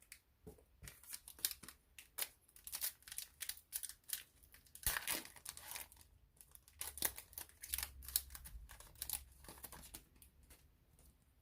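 A trading-card pack wrapper being torn open and crinkled, with the cards being handled. It is a quick string of short crackles and rustles, with one longer tear about five seconds in.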